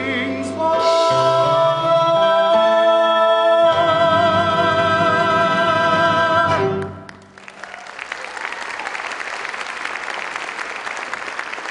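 Two singers hold the last note of a musical-theatre duet with vibrato over instrumental accompaniment, ending sharply about seven seconds in. The audience then applauds steadily.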